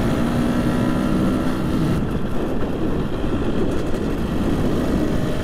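Husqvarna two-stroke motorcycle engine running steadily under way at an even engine speed, over a dense low rumble. The engine is brand new and being run in.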